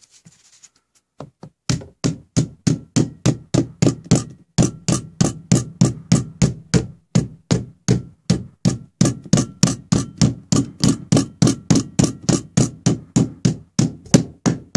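Rubber mallet beating down a metal carpet edge strip, with short sharp blows. They start a second or so in, uneven at first, then settle into a quick, even run of about four blows a second.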